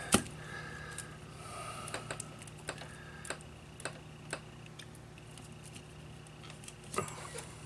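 Scattered light clicks and taps, irregularly spaced, from small tools and parts handled at a soldering repair bench, over a low steady hum.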